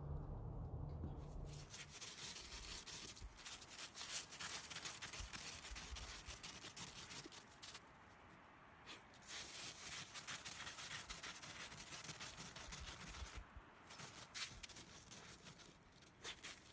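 Snow crunching and scraping as a dachshund digs and burrows its head and body through it: a long run of dense crackling that pauses briefly twice.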